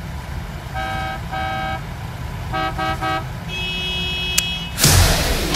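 Car horns honking: two honks, then four quick toots, then a longer, higher-pitched horn note. Near the end there is a click, and loud electric-guitar rock music starts from a boombox.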